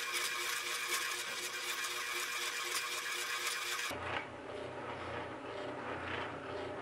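Spindle sander running with an 80-grit drum, sanding the synthetic antler-style handle scales and pins of a knife: a steady motor hum under a gritty sanding hiss. About four seconds in the sound changes abruptly to a quieter, lower hum.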